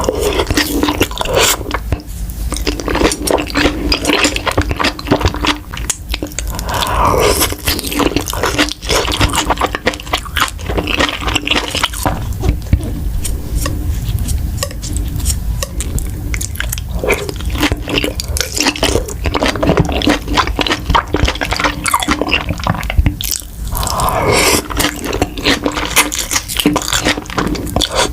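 Close-miked wet chewing of beef large intestines: a dense, continuous run of squishy smacks and clicks from the mouth.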